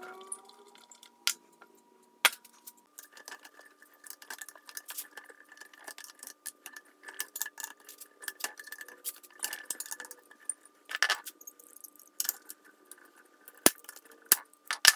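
Hand tools clicking and scraping on steel: a screwdriver and locking pliers working at the push nut on a small wagon wheel's axle, giving a run of small, sharp metal clinks with a few louder knocks in the second half.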